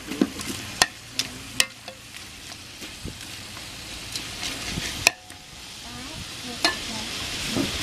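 A perforated steel ladle stirring turkey pieces in masala in a large metal pot, with sharp knocks against the pot several times in the first two seconds, once about five seconds in and again near the end. Under the knocks the meat sizzles steadily as it fries.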